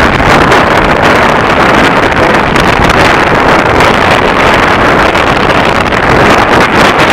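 Strong wind buffeting the camera's microphone, loud and steady.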